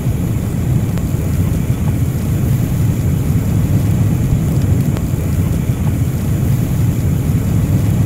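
Gas blow torch flame burning steadily: a loud, even rushing noise, heaviest in the low end.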